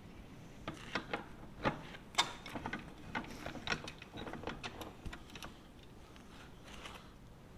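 Small metal parts of an adjuster assembly clicking and knocking together as they are handled and fitted into their housing by hand. A run of irregular light clicks, loudest about two seconds in, that thins out past the middle.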